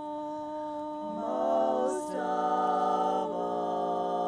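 Women's barbershop quartet singing a cappella in close four-part harmony, holding sustained chords that shift three times as the phrase moves toward its ending.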